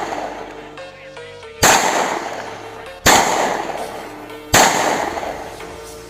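Three 9mm pistol shots about a second and a half apart, each with a long echoing tail, over background music.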